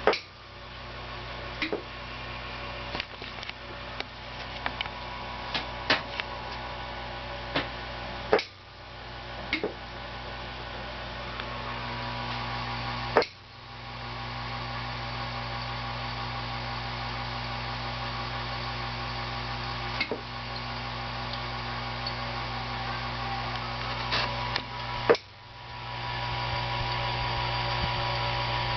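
6JE6C sweep tubes ticking: irregular sharp ticks every second or few seconds, over a steady mains hum from the powered-up equipment.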